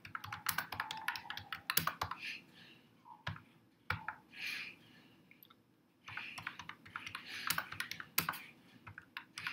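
Typing on a computer keyboard: quick runs of key clicks, thinning out to a few scattered strokes and a short lull in the middle, then a fresh burst of typing.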